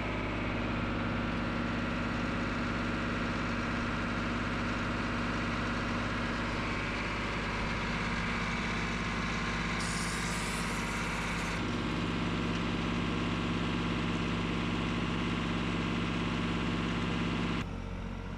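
Backhoe engine running steadily, its hydraulics given out. A hiss comes in about ten seconds in and stops a second and a half later, the engine note changes at the same moment, and it drops away near the end.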